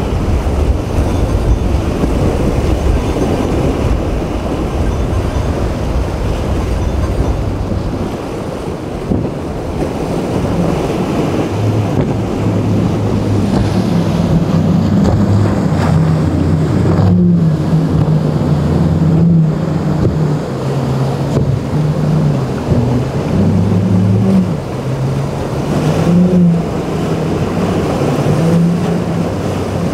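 Boat engines running and changing pitch as boats work through rough inlet water, over the wash of waves. Wind rumbles on the microphone at first, and the engine note comes up about ten seconds in.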